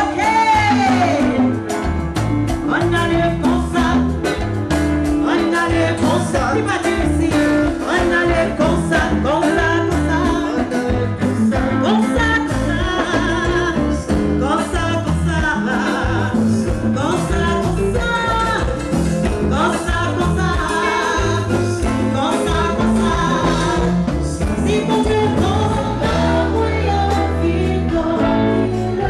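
Gospel worship music: singing over a band with a steady beat and bass.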